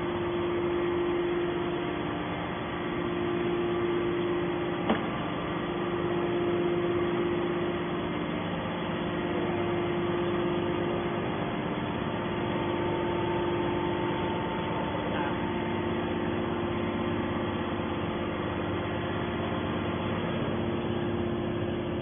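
Hydraulic power unit of a 250-ton metal scrap baler running steadily: a continuous machine hum with one short click about five seconds in.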